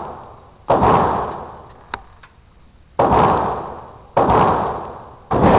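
Four 12-gauge shotgun shots loaded with 2¾-inch buckshot, about a second or two apart, each ending in a long fading echo, with a couple of small clicks between the first two.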